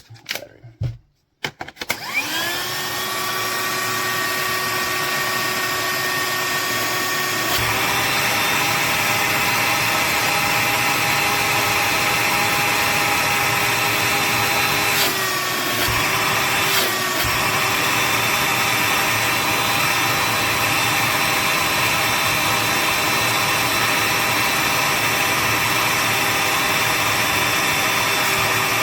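TengXcel cordless handheld vacuum motor spinning up about two seconds in and running with a steady whine while its nozzle draws on a steel plate in a suction test. The sound grows louder and hissier about seven seconds in, and the pitch sags briefly twice near the middle as the load on the motor changes.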